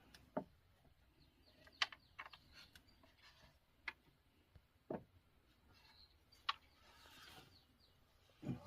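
Scattered light knocks and clicks, about seven spread unevenly over several seconds, with a few faint high chirps between them.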